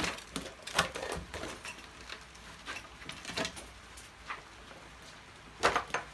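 Scattered knocks and rustles of a flexible silicone rubber mould and loose plaster debris being handled on a wooden workbench, with the loudest cluster of knocks near the end.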